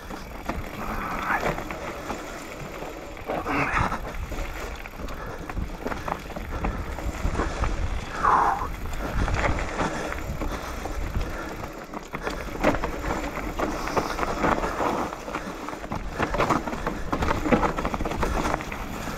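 Mountain bike running down a dirt singletrack: the tyres roll over dirt and dry leaves, the bike rattles and knocks over bumps, and a low rumble runs underneath.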